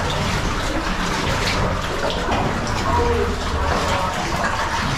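Water sloshing and splashing as cavers wade and crawl through a low, water-filled cave passage, a steady wet churning throughout.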